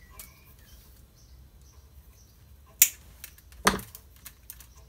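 Two sharp clicks about a second apart and a few fainter ticks as small fishing tackle (swivels, hooks and heavy mono line) is handled on a worktop.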